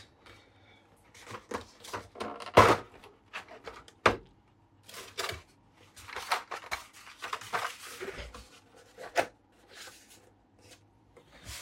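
Black plastic accessory tray being handled and turned around on a desk: irregular clicks, knocks and rustling of hard plastic, with a louder knock about two and a half seconds in.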